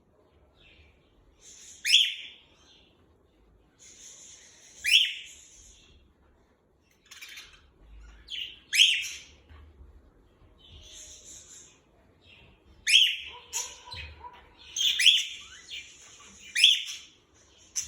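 Pet budgies and a cockatiel chirping: about seven loud, sharp calls, each sweeping down in pitch, come every two to four seconds over softer high chatter.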